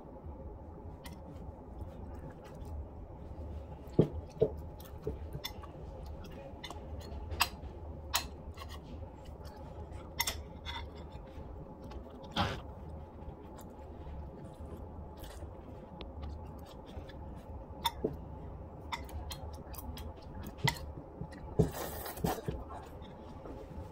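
A metal spoon clinking and scraping against a ceramic bowl at scattered moments, with soft chewing of rice porridge, over a low steady hum. A short noisy rush comes near the end.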